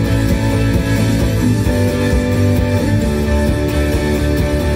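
Telecaster-style electric guitar strumming a chord progression, G, D and B minor in the key of D, played as a steady rhythm part with the chords falling on the 1 and the 4.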